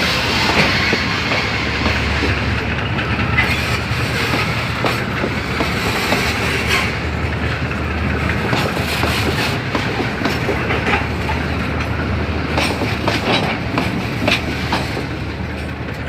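Empty ballast wagons of a freight train rolling past, with wheels clacking and rattling over the rail joints and a steady low rumble underneath. It eases off a little near the end.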